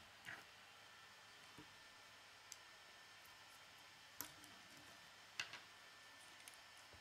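Faint, scattered clicks of plastic K'nex rods and connectors being handled and snapped together, about half a dozen in all, the sharpest about two-thirds of the way through.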